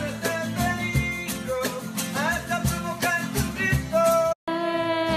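Singing with acoustic guitar strumming in an even rhythm. The sound drops out abruptly for a moment just over four seconds in, then a sung note is held.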